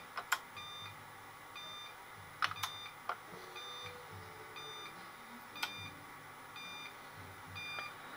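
Eaton Evolution 850 UPS alarm sounding short, high-pitched beeps about once a second: the unit is warning of its low battery. Several sharp clicks and knocks from handling the opened unit are louder than the beeps.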